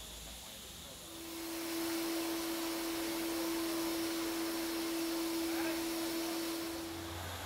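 Steam locomotive releasing steam: a long, steady hiss with one held tone. It starts about a second in and stops near the end.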